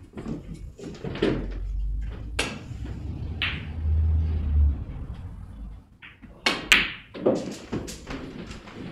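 Sharp clicks and clacks of a snooker shot: the cue tip striking the cue ball and the balls colliding, the loudest pair of clicks a little past the middle.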